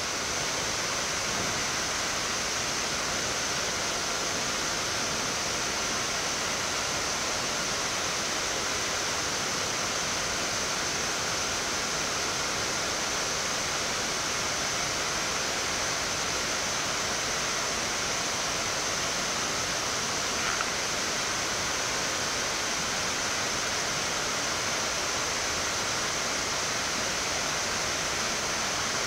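Steady rushing noise on a Boeing 787-8 flight deck in the climb after takeoff: air flowing past the airframe and the air conditioning, with a faint high steady whine.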